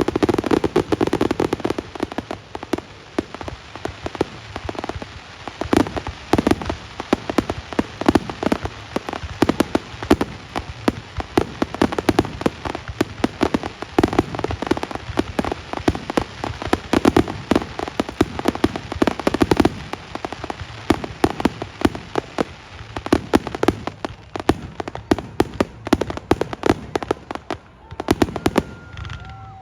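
Fireworks display: a dense, unbroken run of bangs and crackling bursts, many overlapping one another.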